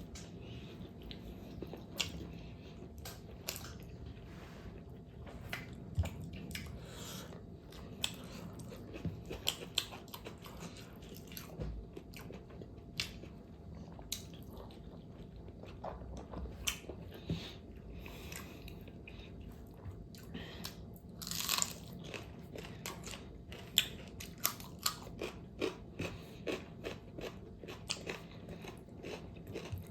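Close-miked mouth sounds of someone biting into and chewing pork fat: a run of irregular wet crunches and clicks, with a louder crunch a little past twenty seconds in.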